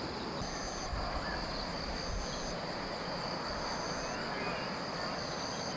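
Insects calling at dusk: a steady high-pitched trill throughout, with a second, higher call that comes in for about half a second roughly every one and a half seconds, over a steady hiss of outdoor background noise.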